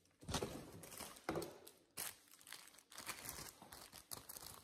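Clear plastic wrap crinkling and rustling in irregular bursts as a new mop handle still wrapped in film is handled, loudest about a third of a second and just over a second in.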